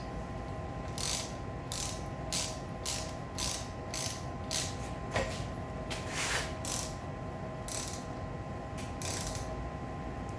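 Hand ratchet wrench clicking through short back-strokes, roughly two a second with a few pauses, while tightening bolts.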